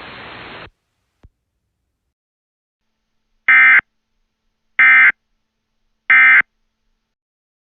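Emergency Alert System end-of-message (EOM) tones: three short, identical, shrill data bursts about 1.3 seconds apart, the digital SAME code that signals the alert is over. Before them a steady hiss cuts off under a second in, followed by a single click.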